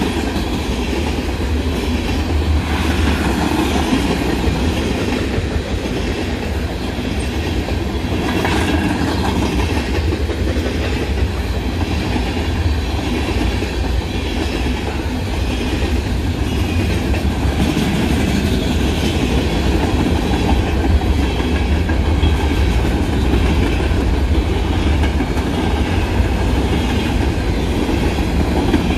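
Mixed freight train rolling past: a loud, steady rumble of steel wheels on the rails, with faint repeated clicks.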